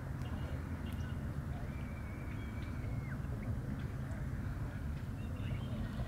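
Outdoor wetland ambience: a steady low rumble with faint bird calls over it, including one thin, steady whistled note about two seconds in that drops off at its end.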